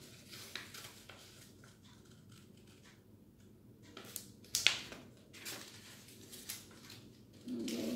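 Scissors snipping through stiff paper: scattered small snips and rustles of the sheet, with one sharper snip about halfway through.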